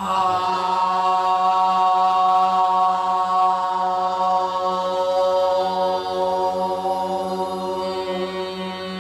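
Women's voices hold one long sung vowel at a steady middle pitch, a Korean traditional (gugak) vocal warm-up exercise. The note starts suddenly and is sustained without a break, easing slightly toward the end.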